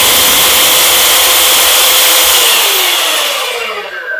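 Interskol LShM-76/900 belt sander running at full speed, with a steady motor whine and belt noise, then switched off about two and a half seconds in and spinning down, the pitch falling away. It is running briefly to check the belt tracking while the tracking screw is adjusted.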